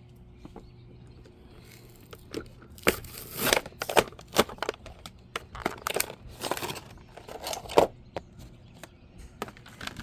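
Toy packaging being torn open and crinkled by hand: a run of irregular rips and crackles, with a few sharp clicks, from about two seconds in until near the end.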